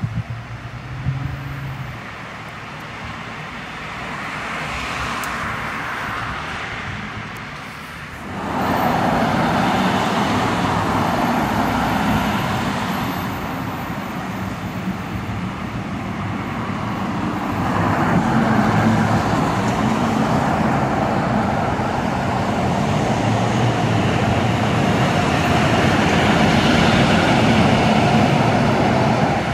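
Road traffic passing on a town street, cars and a tractor-trailer going by. It runs low at first, jumps suddenly louder about eight seconds in, and swells again in the second half.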